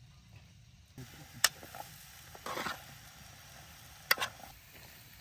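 Sliced sausage and potatoes frying in oil in an aluminium pot on a camping gas stove. The sizzling starts about a second in, with two sharp clinks of a fork against the pot and a short scrape of stirring.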